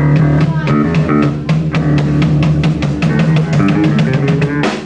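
Rock band playing live: drum kit, guitar and bass guitar playing a riff together, with rapid drum hits, dropping out briefly just before the end.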